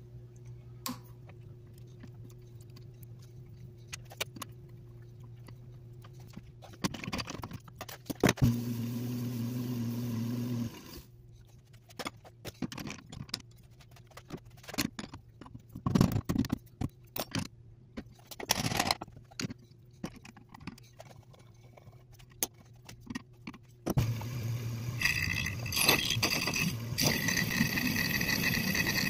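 Metal clinks and clanks as a chuck key and bars tighten an aluminum workpiece in a wood lathe's four-jaw chuck. Near the end the lathe runs and a tool cuts the aluminum with a steady high-pitched ringing.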